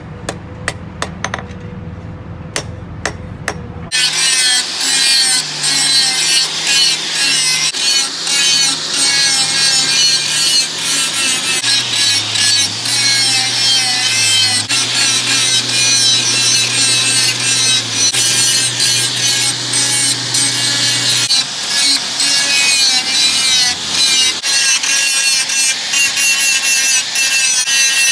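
A string of hand-hammer blows on the steel sickle blade lying on the anvil. About four seconds in, an angle grinder with an abrasive disc takes over, grinding the edge of the rebar sickle with a steady, harsh, high-pitched grinding noise over the motor's hum.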